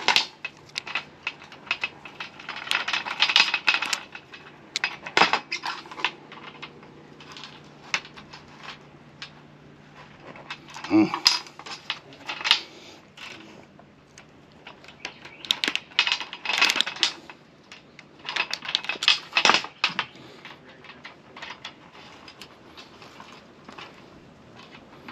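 Metal-on-metal clicking and scraping as a Sta-Lok former cone is worked onto the inner core strands of a wire rigging cable, catching on a burr at the core's end. The clicking comes in several short bursts with pauses between them.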